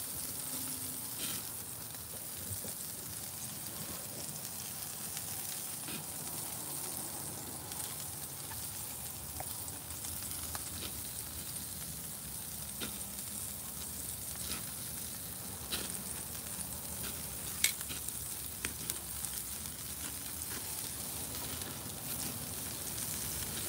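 Pork chops sizzling on the grate of a charcoal grill: a steady hiss with scattered crackles and pops, one sharper pop about eighteen seconds in.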